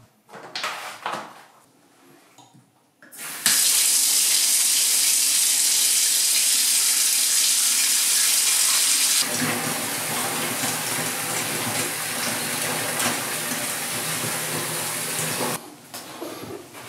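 Bathtub faucet running, a steady stream of water pouring into the tub, turned on about three seconds in after a few faint handling sounds. Partway through the splashing turns lower and slightly quieter, and it cuts off sharply near the end.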